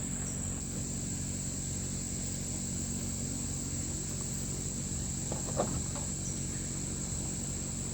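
Crickets chirping steadily in one high, unbroken band, over a low steady hum. A faint brief sound comes about five and a half seconds in.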